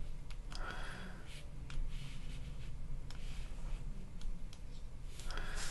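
Scattered faint clicks and soft rustling from a computer mouse being handled and clicked at a desk.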